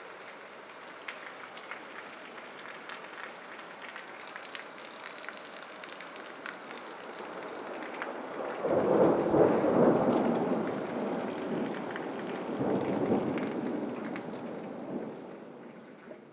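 Steady rain with scattered sharp ticks of drops striking surfaces, then a long rumble of thunder that swells in about halfway through, swells again, and fades out near the end.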